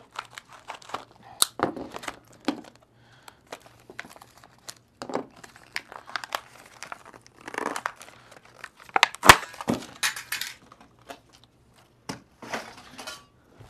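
A small printed cardboard product box being torn open and crinkled by hand, with scattered rustles and sharp clicks; a sharp snap about nine seconds in is the loudest sound.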